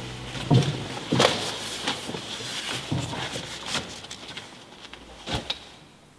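Knocks and creaks of wooden church pews as two people step into a row and sit down: several separate wooden knocks, the loudest about half a second and a second in, a last one near the end.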